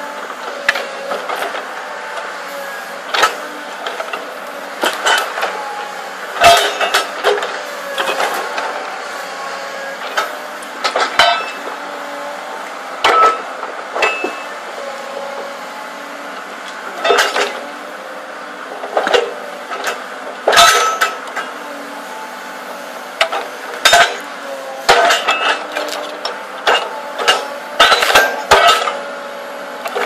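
Excavator engine running steadily while its hydraulic splitting cleaver drives into log rounds, with repeated sharp knocks and cracks as the wood splits and pieces fall, closer together near the end.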